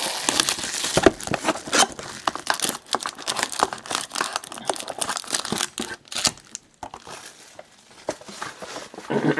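Plastic trading-card packaging crinkling and tearing as a sealed box and its packs are opened. Dense crackling for about six seconds, then fainter rustling.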